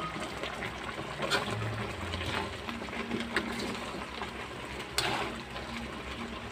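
Duck pieces simmering in coconut milk in a wok, a steady bubbling, with a spatula stirring the meat and knocking against the pan a few times.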